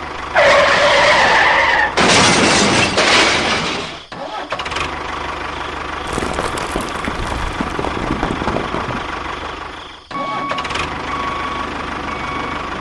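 Engine-like running noise from a vehicle, in several spliced segments that change abruptly about two, four and ten seconds in.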